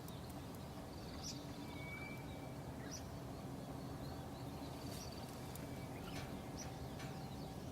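Scattered short, high bird chirps and a brief whistled note about two seconds in, over a steady outdoor rush with a faint hum.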